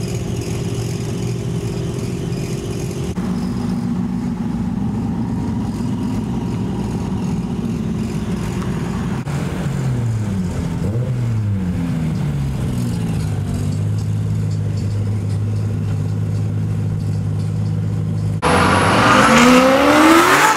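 Car engines of departing sports cars, running steadily at first; about halfway through one engine revs up and down several times, and near the end a louder car accelerates hard with a sharply rising pitch.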